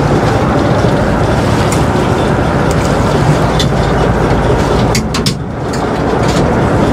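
Fishing boat under way: its engine runs steadily under wind and water noise, with a brief dip in level and a few clicks about five seconds in.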